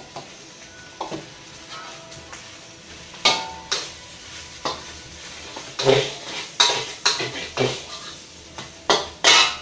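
Metal spatula scraping and knocking against a stainless steel wok while stir-frying rice, in irregular strokes, the loudest near the end, over a faint steady hiss.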